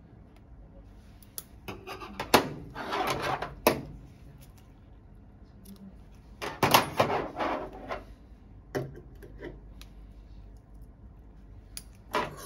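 Metal surgical instruments (needle holder, forceps) clicking and clattering as they are handled and laid down: two bursts of clicks and rattling about two seconds and six and a half seconds in, and a short click near the end.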